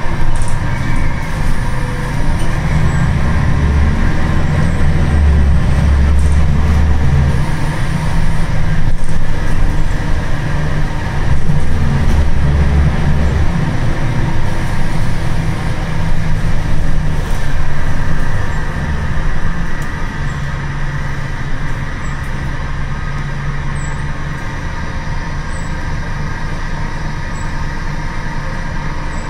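Wright Solar bus on a Scania chassis heard from inside the passenger saloon: the diesel engine's low drone and road noise as the bus drives. Loud for the first two-thirds, then settling to a quieter, steadier run about twenty seconds in.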